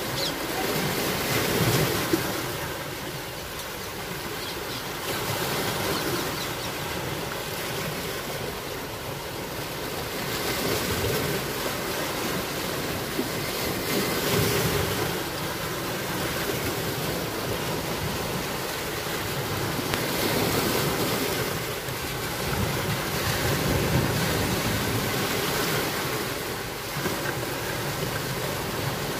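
Sea waves washing onto the shore, the rush of water swelling and fading every few seconds.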